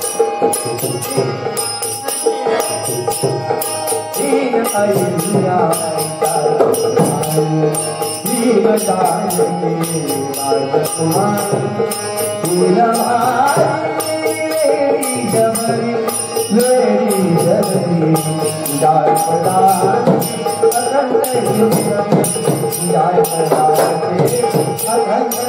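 Marathi gavlan devotional song: a voice sings a bending melody over a steady held drone, with fast, even jingling percussion keeping the beat.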